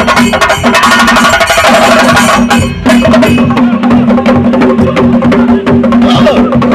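Group of Kerala chenda drums beaten fast with sticks in a dense, loud rhythm, with a steady low tone underneath. About three seconds in there is a brief dip, and after it the crisp high strokes thin out.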